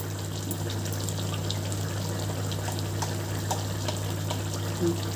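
Prawn curry in coconut milk simmering hard in a kadai: a steady run of small bubbling pops and spits over a low steady hum.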